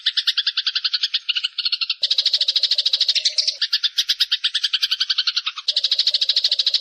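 Recorded songbird trill from a bird-song mastering track: rapid, buzzy notes repeated about a dozen a second. The mix changes abruptly about two seconds in and again near the end.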